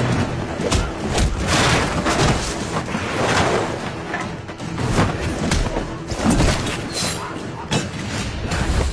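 Action-scene film soundtrack: background music overlaid with repeated sudden impacts, thuds and booms of a fight.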